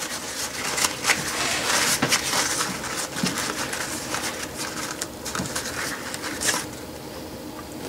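Paper towels rustling and crinkling as they rub a small cast-iron lathe change gear dry, with scattered light scrapes and taps.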